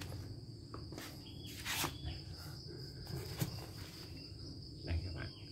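Steady high-pitched insect trill in the background, with a few soft knocks and rustles from the brush cutter's backpack frame and straps being handled.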